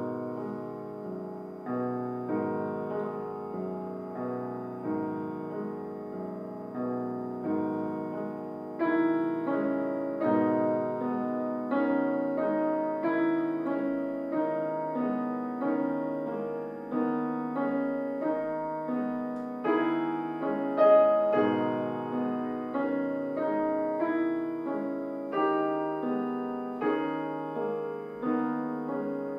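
Grand piano played solo: classical music in a steady pulse of struck chords and notes.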